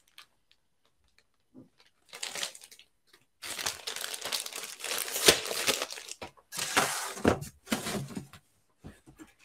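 Plastic packaging crinkling and rustling in bursts as CGC-graded comic slabs are handled and unpacked. It starts about two seconds in, with a few sharp ticks among the crinkles, and dies away near the end.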